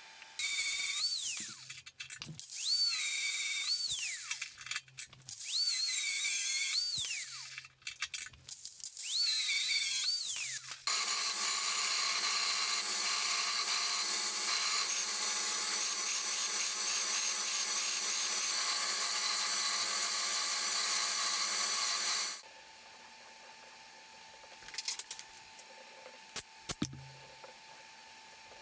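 High-speed power tool spun up and let wind down four times in short bursts, its whine rising, holding and falling each time. This is followed by a steadier machine running continuously for about eleven seconds, then stopping.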